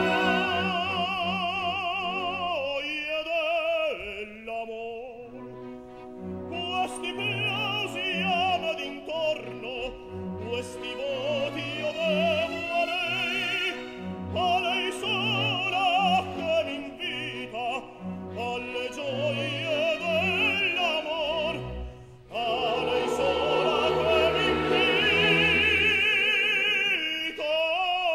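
Operatic tenor singing with wide vibrato over an orchestral accompaniment. About 22 seconds in the sound becomes suddenly fuller and louder and stays so.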